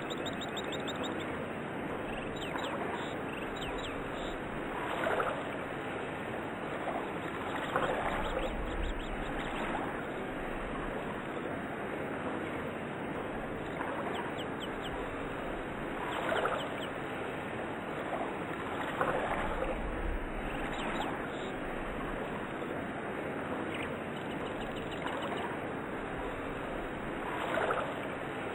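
Steady rush of running water with birds chirping now and then, a nature-sound bed.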